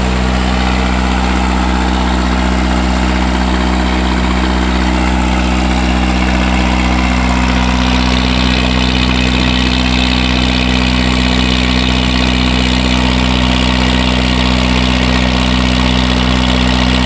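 A produce vendor's vehicle engine idling steadily: an even, low-pitched drone with no change in engine speed, and a little more high hiss about halfway through.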